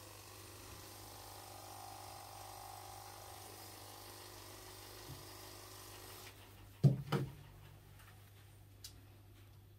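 Faint room noise with a steady low hum. About seven seconds in come two short, loud, low sounds in quick succession.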